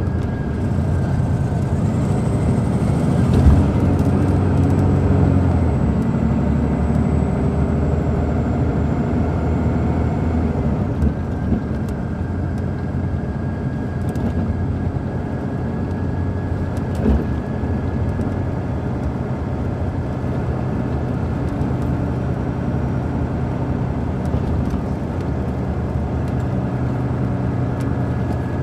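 Detroit Diesel Series 60 inline-six diesel of an MCI D4000 coach bus running, heard from inside the bus. It is a steady low drone that grows a little louder a few seconds in and then settles.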